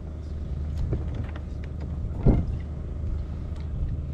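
Steady low wind rumble on the microphone on open water, with a few light knocks and one louder thump a little after two seconds in.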